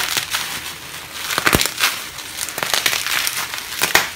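Packaging being unwrapped and handled by hand: irregular crinkling and crackling, with a few sharper cracks.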